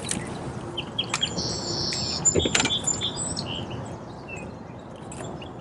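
Small birds chirping in short, high calls, with one steadier high trill about a second and a half in. A few sharp knocks come about two and a half seconds in, over a steady background noise.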